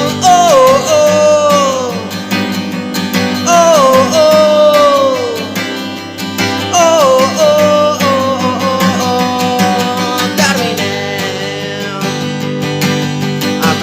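Music: a guitar-backed song passage without words, a melody line sliding down in pitch several times over sustained chords.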